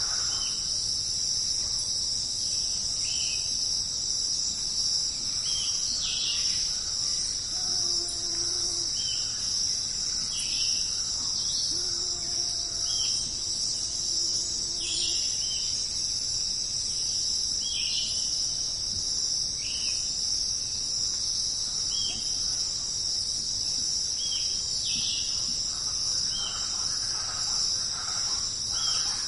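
Steady high-pitched chorus of insects such as crickets, running without a break, with short chirps repeating every second or two.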